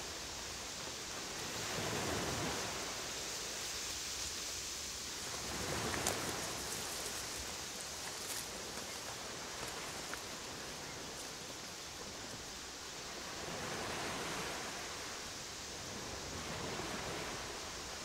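Wind blowing across the microphone, a steady rushing that swells and fades in slow gusts, with a few faint clicks.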